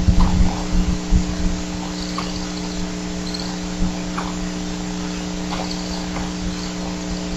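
Steady electrical hum from a bald eagle nest camera's microphone, with faint short chirps and brief high trills of evening insects and frogs scattered through it. A few low knocks in the first second or so.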